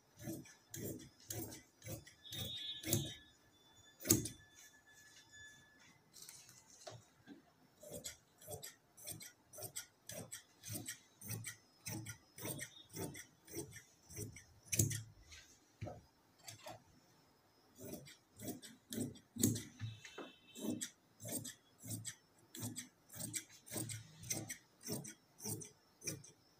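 Tailor's scissors cutting cloth: a long run of sharp snips, about two or three a second, with a couple of short pauses.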